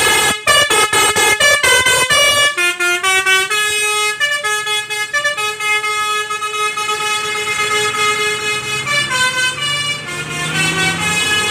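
Basuri melody horn on a bus playing a tune: a quick run of short notes for about two and a half seconds, then a slower melody of held notes.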